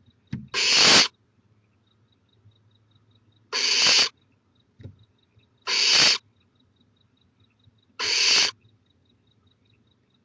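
Barn owl snoring: four harsh, hissing screeches, each about half a second long and coming roughly every two seconds. This is the barn owl's food-begging call.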